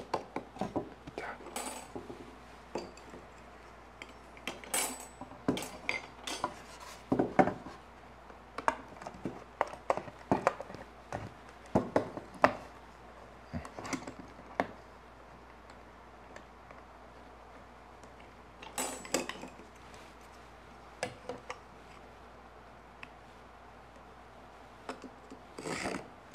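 Irregular clicks, taps and light scrapes of a steel combination square and a marking knife being set against and moved along clamped pine bars while knife lines are marked out. The clicks come thick for about the first fifteen seconds, then only a few, with a short cluster near the end.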